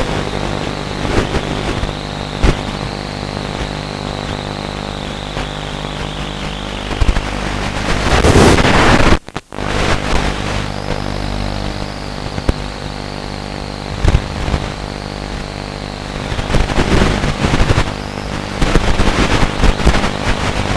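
Radio-controlled model airplane's motor and propeller running with a high whine over rushing wind, the whine sagging as the throttle eases around six to eight seconds. A loud gust of noise follows, with a brief cut-out just after nine seconds, and then the whine returns with scattered crackles.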